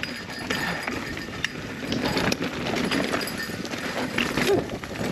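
Mountain bike riding down a dirt singletrack: tyres rolling over dirt and dry leaves, with the bike rattling and clicking over bumps.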